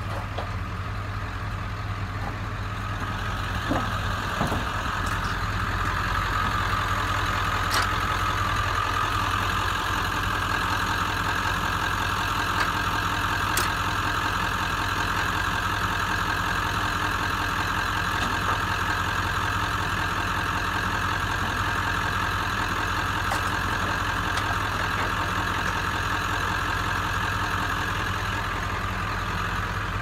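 Truck engine idling steadily, with a few brief knocks over it.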